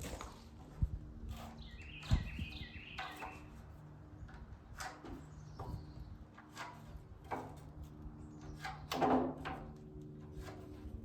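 Scattered light knocks and clatter of wooden siding boards being handled. A bird chirps a quick run of notes about two seconds in, and a louder knock comes near the end.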